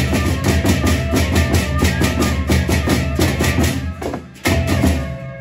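Gendang beleq ensemble playing: large barrel drums beaten with a fast, even pattern of clashing hand cymbals (ceng-ceng), about five strokes a second. Near the end the beat breaks off briefly, one last stroke rings out and dies away.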